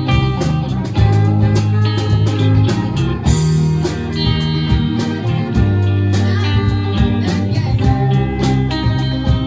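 Live band playing an instrumental passage, led by guitar over a bass line and a steady drum beat.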